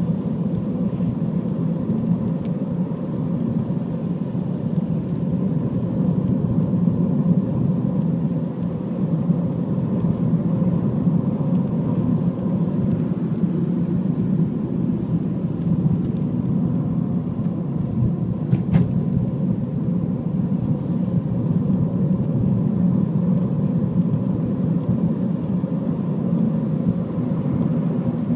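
Car driving at steady speed: continuous road and engine rumble, with a single faint click about two-thirds of the way through.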